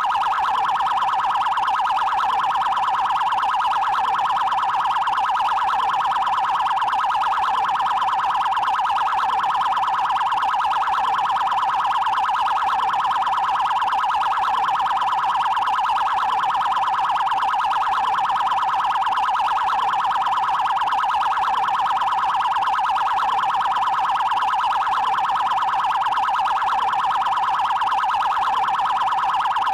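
Brazilian Federal Highway Police (PRF) electronic siren sounding its 'trail' priority tone: a fast, steady warbling pulse that repeats without a break.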